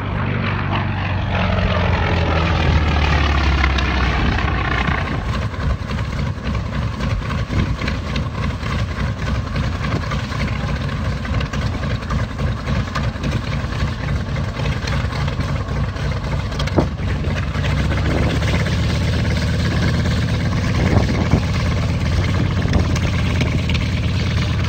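A propeller aircraft flies past with its engine pitch falling. Then the Grumman FM-2 Wildcat's nine-cylinder Wright R-1820 Cyclone radial engine runs at low power as the fighter taxis, with a rapid, uneven firing beat.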